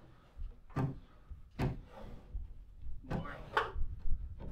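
Several separate wooden knocks and bumps as a lumber roof truss is shifted and pushed into place on top of the framed walls.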